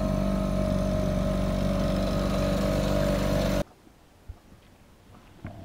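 Small boat's outboard motor running steadily at a constant speed, then cutting off abruptly about three and a half seconds in, leaving only faint background sound with a small knock.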